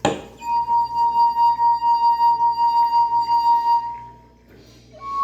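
A wine glass singing as a wet finger is rubbed round its rim, after a light clink at the start: one clear ringing tone with a regular wavering about four times a second, fading out about four seconds in. A slightly higher tone starts near the end as the glass holds less water.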